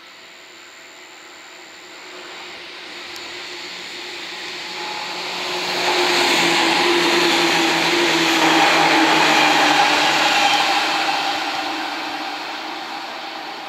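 Seibu 2000-series electric train running through a station without stopping. The rumble of its wheels and motors builds, is loudest through the middle and fades near the end, with a steady motor hum that dips slightly in pitch as it goes by.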